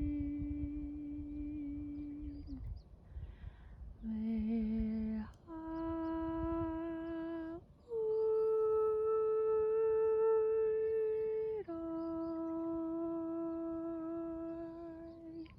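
A voice-like humming of long, steady held notes, each lasting a few seconds and stepping up and down in pitch with short breaks between. It is presented as an unidentified sound. A low rumbling noise lies under the first few seconds.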